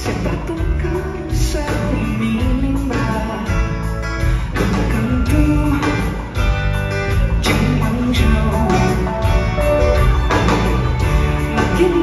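Live rock band and string orchestra playing a slow song together: guitars and bowed strings, with a woman's sung melody over them.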